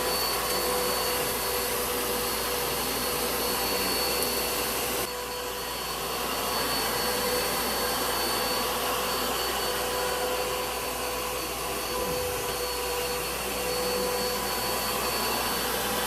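Bissell bagless upright vacuum cleaner running steadily, its motor noise carrying a constant whine, with the hiss easing slightly about five seconds in.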